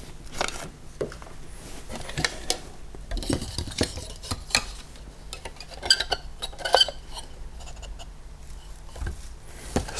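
Scattered clicks and light clinks of a small exhaust fan's plastic parts being handled as its impeller, which had popped off the motor shaft, is put back in place.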